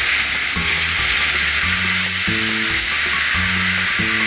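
Crushed stone pouring off the tipped bed of a large dump truck onto a pile: a steady hissing rush. Background music with changing bass notes plays over it.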